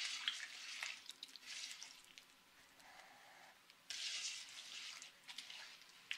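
Hands squishing and kneading a soft, oily mix of butter, sugar, oil and orange blossom water in a wooden bowl: quiet wet squelching in short bursts.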